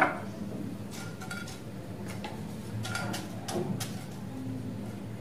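Whole spices being dry-roasted in a non-stick frying pan and pushed around with a wooden spatula: scattered light ticks and clicks over a steady low hum.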